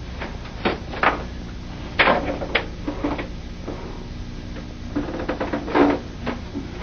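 Scattered knocks, clicks and rustles of a person moving about and handling things at a desk, over a faint steady hum.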